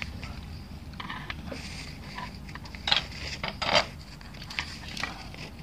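Scattered light clicks and clinks of handling at an open TV chassis, loudest about three seconds in and again just before four seconds, over a steady low hum.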